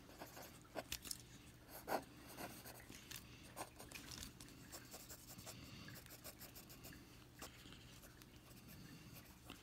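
Faint scratching of a pencil on paper as short sketching and shading strokes are drawn, with a few light ticks among them.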